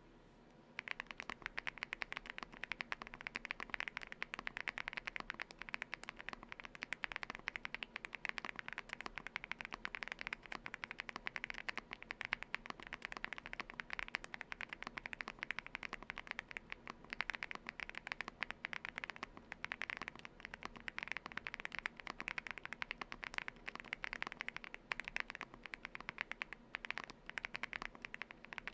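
Fast, continuous typing on a Galaxy80 mechanical keyboard with Aflion Ink switches, lubed and dampened with a three-layer tape mod and case foam: a dense stream of key clacks that starts about a second in.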